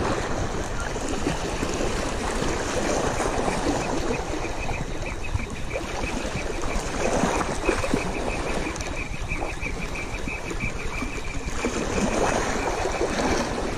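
Small waves lapping and washing over the rocks of a shallow reef flat, with wind on the microphone. A fast, faint, even ticking starts a couple of seconds in and runs until near the end.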